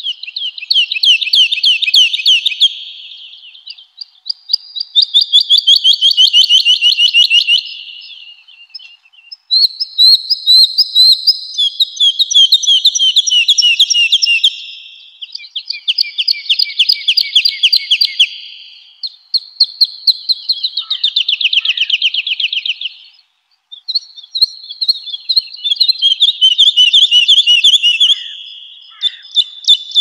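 Woodlark singing: about eight phrases of rapidly repeated notes, each a few seconds long and falling in pitch, with short pauses between phrases.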